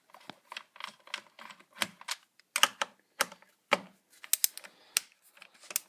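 Irregular plastic clicks and knocks as the air filter cover on a Poulan 1950 LE chainsaw is unscrewed and taken off, about a dozen sharp taps with the loudest in the middle and near the end.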